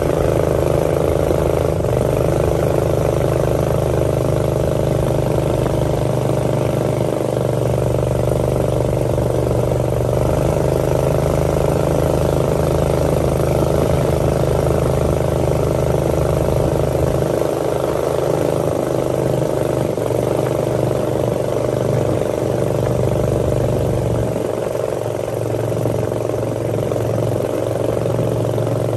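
A small motorboat's engine running steadily at cruising speed, with the rush of water and wind as the boat moves.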